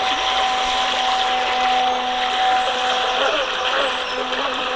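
The small electric water-jet motor of a radio-controlled jet boat whines at a steady pitch, then wavers up and down from about three seconds in as the throttle or load changes. Under it is the steady rush of fast, shallow brook water.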